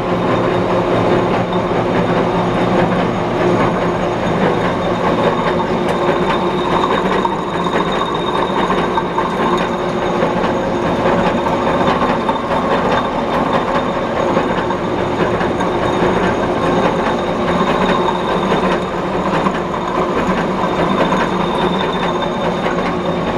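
5D32 gear-hobbing machine running steadily, its hob cutting the teeth of a steel spur gear: a constant gear-train hum under dense metallic cutting chatter.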